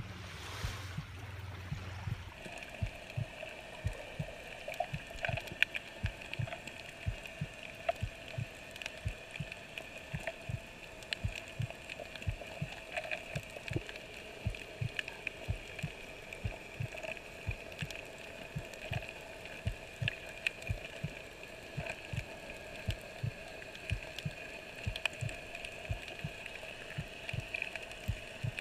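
A short wash of water at the shoreline, then underwater sound heard by a snorkeler's camera: a steady two-toned hum with many irregular low thuds and faint scattered clicks.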